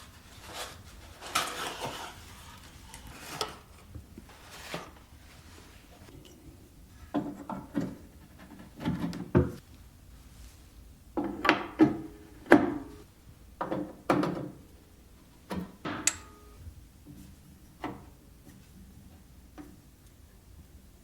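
Irregular knocks, clicks and rubbing noises, about a dozen separate strikes with no steady rhythm. They come thickest and loudest in the middle, then thin out to a faint hush near the end.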